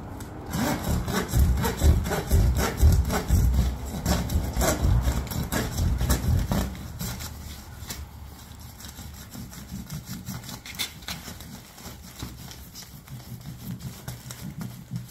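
Handsaw cutting through a plastic-wrapped roll of fibreglass batt insulation: rhythmic back-and-forth strokes, about two a second, loud for the first seven seconds, then softer scraping and rustling as the roll is turned.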